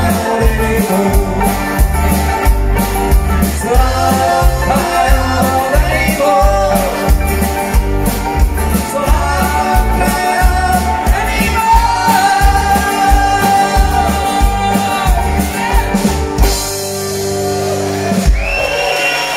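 Live folk band playing with singing: acoustic guitars and accordion over a steady drum beat. About sixteen seconds in, the beat stops and the song closes on held notes.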